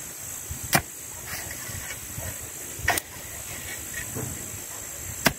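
A steel hoe blade striking the ground three times, about two seconds apart, with softer scraping between the strikes as cut weeds are raked into a pile.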